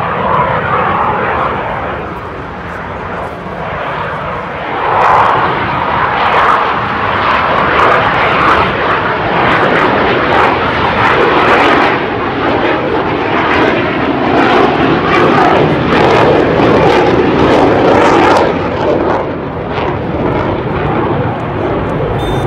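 Dassault Rafale fighter jet flying past, its twin turbofan engines making a loud jet roar that swells and dips in level as it goes.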